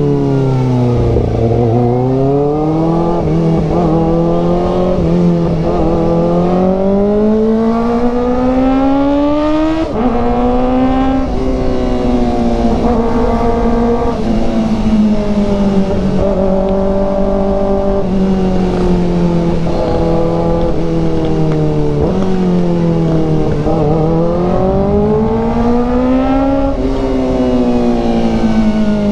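Kawasaki ZX-4RR's 399 cc inline-four engine under way, its pitch climbing and falling with throttle and road speed, with an abrupt change in pitch about ten seconds in.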